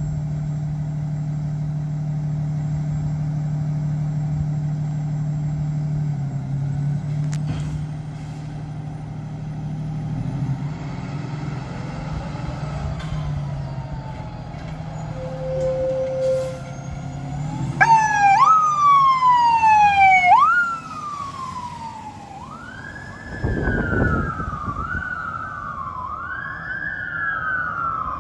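Aerial ladder fire truck's diesel engine idling with a steady hum as the truck pulls out, then its siren comes on loud about two-thirds through: a few quick rising-and-falling sweeps, followed by a slower rising-and-falling wail with a short low blast partway in as the truck drives off.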